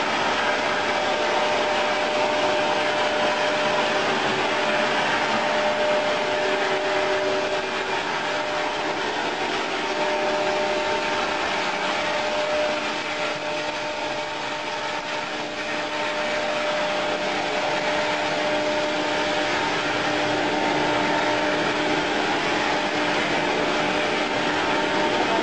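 Prototype electromagnetic motor (the Ismael motor) running steadily on battery power during a test run: a continuous whir with a few steady whining tones over a rushing hiss.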